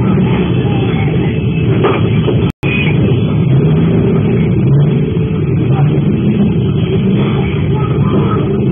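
Loud, distorted din of many motorcycle engines running and revving together in a crowded street, with a brief dropout about two and a half seconds in.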